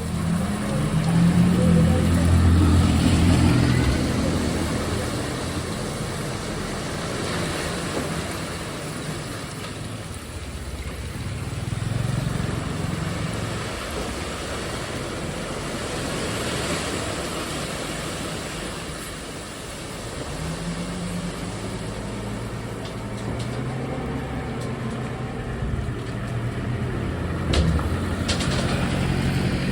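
A diesel dump truck's engine running and revving up and down several times, with a sharp knock near the end.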